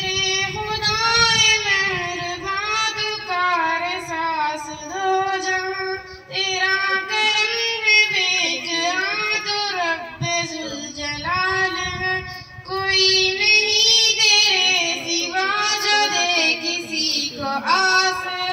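A girl singing a hamd, an Urdu hymn in praise of God, solo and unaccompanied. She holds long, wavering notes with gliding melodic runs between them.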